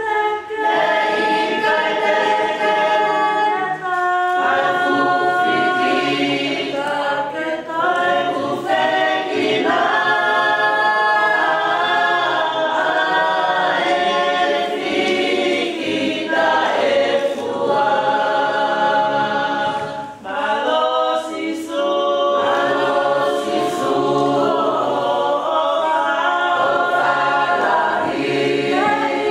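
Choir singing a hymn unaccompanied, several voices together in sustained, flowing phrases, with a short breath-like pause about twenty seconds in.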